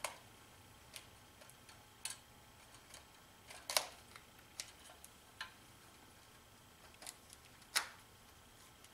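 Plastic clicks of IDEC modular switch contact blocks being pressed and snapped onto pushbutton operators, a handful of separate clicks with two sharper snaps about four and eight seconds in.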